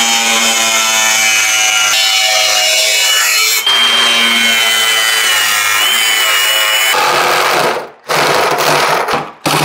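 Cordless angle grinder with a thin cutoff wheel cutting into a thin metal back plate: a steady high whine over gritty cutting noise. Near the end the cutting breaks into short bursts.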